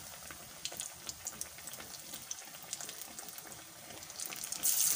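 Besan-battered fish deep-frying in hot oil: a steady light sizzle with scattered crackles and pops. Near the end the sizzle suddenly grows much louder as another battered piece goes into the oil.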